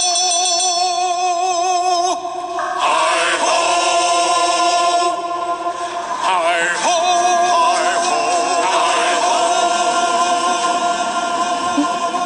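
Music with a group of voices singing long, wavering held notes.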